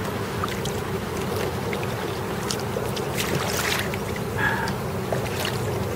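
Kayak paddle strokes: the blades dipping into and lifting out of river water, with irregular small splashes and drips over a steady wash of wind and water noise.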